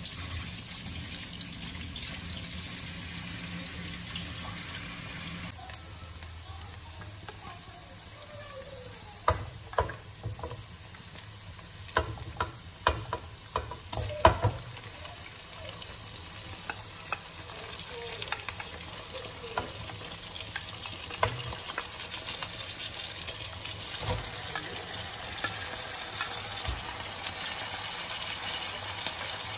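Chopped onion and garlic sizzling in hot oil in a wok, with a steady low hum under it that cuts off about five seconds in. Between about 9 and 15 seconds a run of sharp knocks and thuds as raw chicken pieces go into the pan, then the sizzling carries on, a little stronger near the end.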